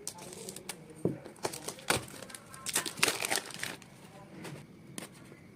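Phone packaging being handled during an unboxing: a quick run of crinkling crackles and sharp clicks, thickest in the middle.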